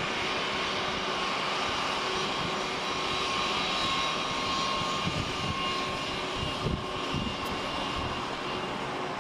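Boeing 757 jet engines at taxi power as the airliner rolls past: a steady rush with a thin, high whine.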